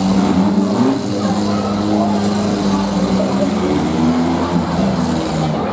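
Demolition derby cars' engines running hard under load, a steady, loud engine drone that shifts in pitch a little.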